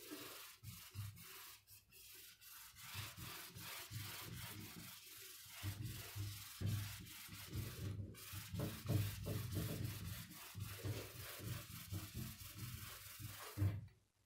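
Whiteboard duster rubbing marker ink off the board in rapid repeated strokes, with a brief pause about eight seconds in, stopping just before the end.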